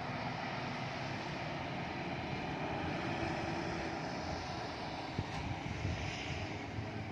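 Steady vehicle noise, a motor running under an even hiss, with no clear siren wail.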